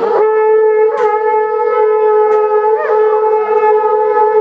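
Horagai (conch-shell trumpet) blown in one long, steady note, with brief wavers in pitch about one and three seconds in.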